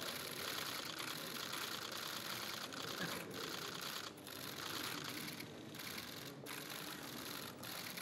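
Many press photographers' camera shutters clicking rapidly and overlapping in continuous bursts, with brief pauses in the second half.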